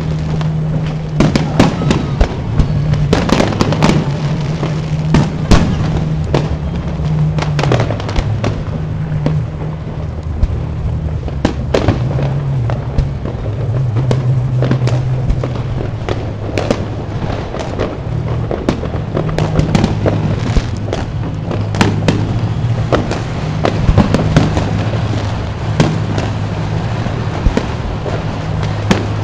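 Aerial firework shells bursting in a steady, irregular series of bangs and crackles, several a second at times. Music with held low notes plays underneath.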